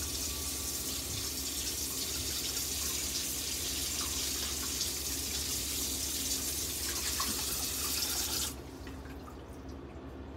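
Kitchen faucet running steadily into the sink, then shut off suddenly about eight and a half seconds in.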